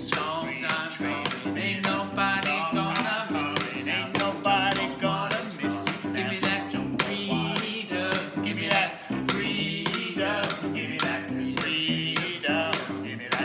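Two men singing a gospel song together over a plucked cello groove, with a metal spoon tapping a steady beat on a can.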